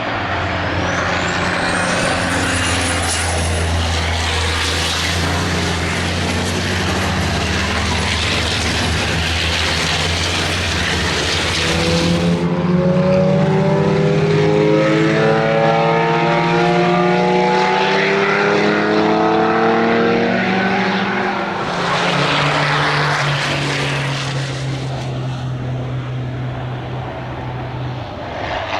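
Racing car engines running at speed on a circuit, with an abrupt change in sound about twelve seconds in and engine notes climbing in pitch shortly after as a car accelerates.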